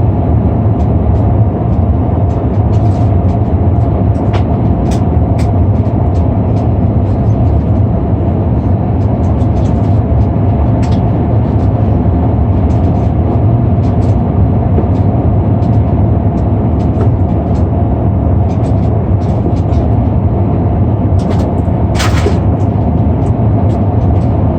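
Airbus A340-600 cabin noise in flight, heard from the front of the cabin: a steady low rumble of airflow and engines with a steady hum, small rattling ticks throughout, and a brief hiss about 22 seconds in.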